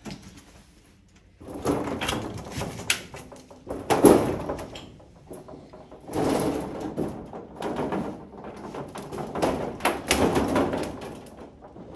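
Footsteps, scrapes and clatters of loose corrugated metal sheeting and debris, made as someone clambers through a derelict railway car whose roof has collapsed. They come in five or so noisy bursts with sharp knocks in them.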